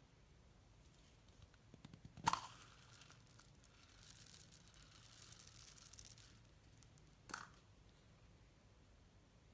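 Slime-making sounds at a low level: a sharp crinkle of a small plastic slime cup being handled about two seconds in, then a soft high hiss for about two seconds as sprinkles and beads are poured onto the slime, and a second short crinkle later on.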